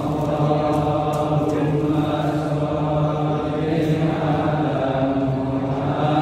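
Men's voices chanting together in unison, with long drawn-out held notes that change pitch only slowly.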